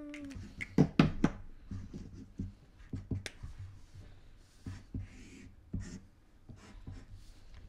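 Marker pens scratching on paper, with scattered clicks and taps of pens being handled against the tabletop; a cluster of sharper knocks comes about a second in.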